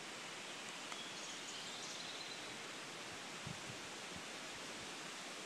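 Steady outdoor background hiss, with faint high chirps between about one and two seconds in and a few soft low bumps in the second half.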